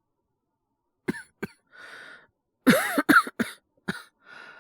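A man's acted cough from a lingering cold: two short coughs, a breath drawn in, then a fit of several harder coughs, one more, and another breath in at the end.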